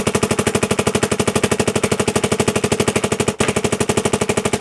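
Dye MXR electronic paintball marker firing rapidly on compressed air, an even stream of about a dozen shots a second, with one brief break in the string about three and a half seconds in.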